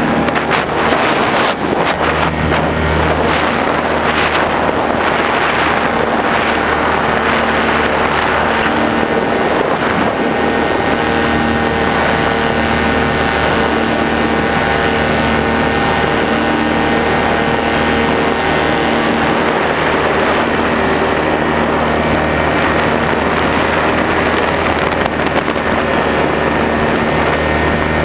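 A motor or engine running at a steady pitch under a loud, continuous rushing noise.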